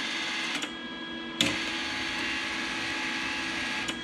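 Lincoln Easy-MIG 140 wire-feed drive motor running as the gun trigger is pulled, pushing wire through the liner with the contact tip out. A short run stops under a second in, and a longer run goes from about a second and a half until just before the end. The welder's cooling fan runs steadily underneath.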